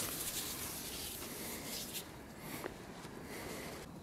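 Close rubbing and rustling of hands handling rope and the camera, loudest in the first two seconds, then quieter with a few faint clicks.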